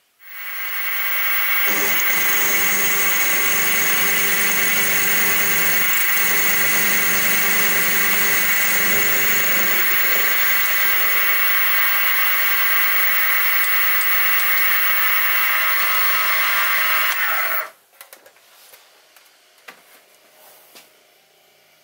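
Sieg SX2P mini-mill spindle starting up and running with a steady high whine while a 9 mm end mill takes a light trial cut into a metal block, with rougher cutting noise for several seconds in the middle. The spindle switches off about 17 seconds in, its pitch falling briefly as it stops, followed by a few faint clicks.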